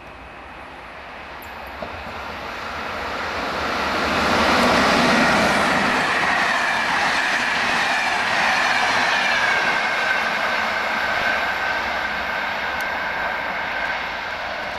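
Electric locomotive and its passenger coaches passing on the line: the rumble and clatter of wheels on rails swells to a peak about five seconds in, then fades slowly as the coaches run by and away. A high whine drops in pitch as the train goes past.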